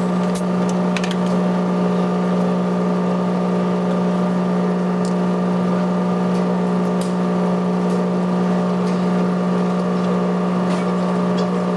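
Electric motor of a tyre-shop machine running with a steady, unbroken hum, with a few faint clicks over it.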